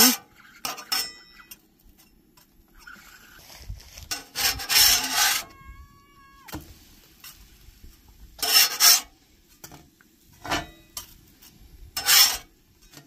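Metal spatula scraping across a griddle in several short strokes. A brief steady tone about halfway through falls away at its end.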